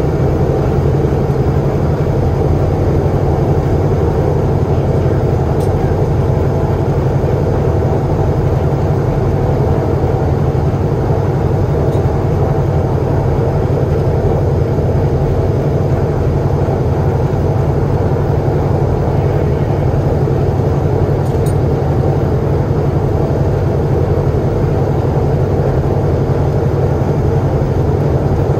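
B-17G Flying Fortress's Wright R-1820 Cyclone radial engines running steadily at low power while the bomber taxis, heard from inside the aircraft as a loud, even drone.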